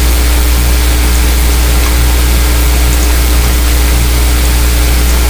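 Steady low electrical-sounding hum with a constant hiss over it, unchanging throughout.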